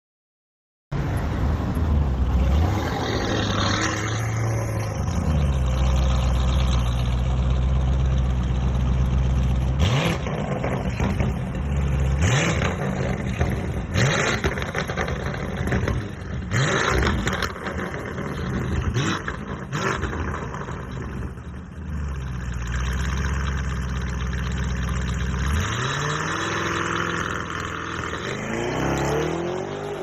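Lamborghini Urus twin-turbo V8 exhaust, coming in suddenly about a second in and running with a deep drone. It is blipped several times in the middle with short rising revs, then revs up and falls again in sweeps near the end.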